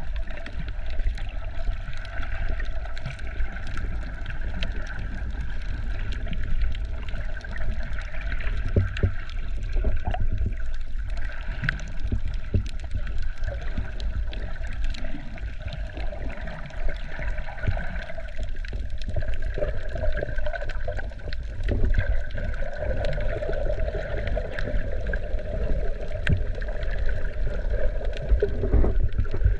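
Muffled water sloshing and gurgling with scattered clicks and knocks over a steady drone, as picked up by a camera in the water while snorkeling.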